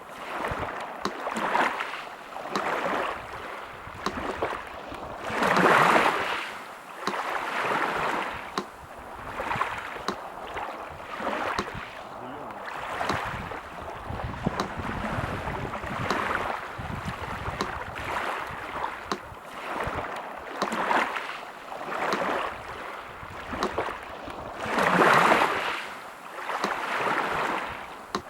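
Sea surf washing in, swelling every second or two, with two larger breakers about six seconds in and near the end, over the steady ticking of a metronome.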